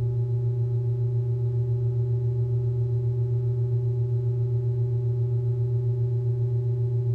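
Electronic sound effect: a low synthesized drone of several steady tones held at one pitch, with a fast, even pulsing flutter.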